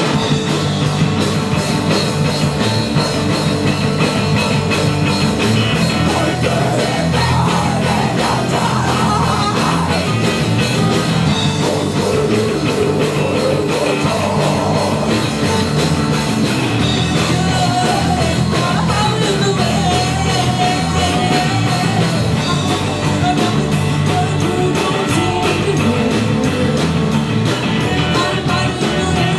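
Live rock band playing a song loudly, with electric guitar and drums.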